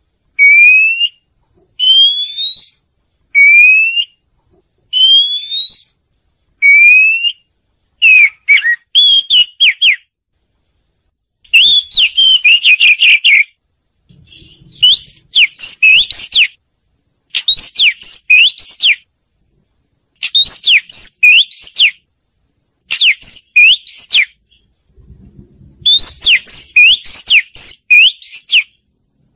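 Oriental magpie-robin singing: first a string of clear, single rising whistles about a second apart, then quicker phrases of sweeping, up-and-down whistled notes with short pauses between them.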